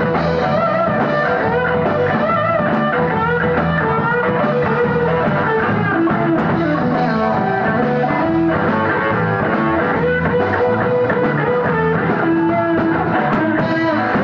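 A rock band playing live, guitar to the fore over bass and drums, a steady full sound without a break.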